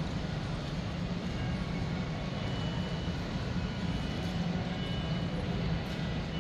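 Steady low drone of a jet airliner's engines, an even rushing noise with a deep hum underneath.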